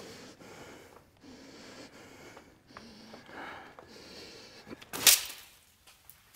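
Faint breathing, then about five seconds in a single sudden loud gunshot.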